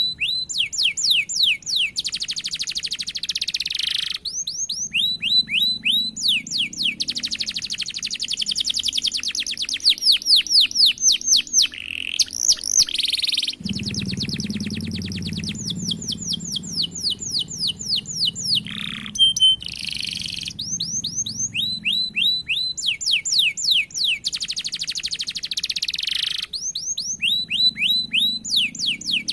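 Domestic canary singing continuously in long phrases: runs of repeated down-slurred notes alternate with very fast rolled trills lasting a couple of seconds each.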